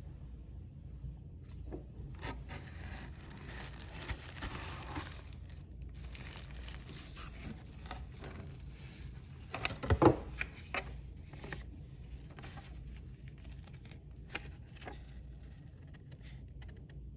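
Tissue wrapping paper and a cardboard box being handled, with crinkling and rustling paper and light scraping against the cardboard. A few sharp knocks about ten seconds in are the loudest sound.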